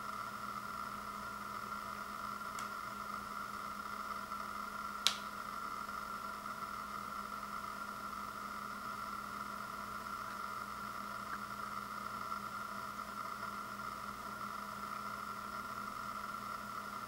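Steady room hum and hiss with a constant whir, broken by one sharp click about five seconds in.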